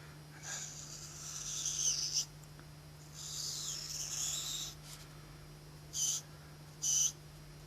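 Pen strokes scratching and squeaking on paper while drawing: two long strokes, then two short quick ones near the end.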